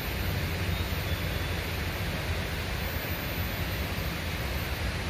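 Steady rushing noise of flowing river water, with a low rumble underneath.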